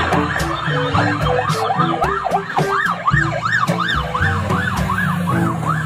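Ambulance siren sound, a fast wail rising and falling about two to three times a second, stronger from about halfway in.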